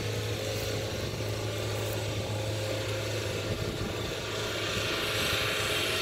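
Engine of a tracked rice-hauling carrier running steadily as it drives over the field, growing louder near the end as it comes closer.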